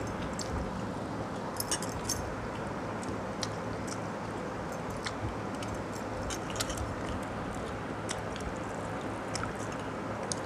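Eating by hand from steel bowls of watered rice: scattered light clicks and clinks of bangles and fingers against the steel, with some chewing, over a steady low hum.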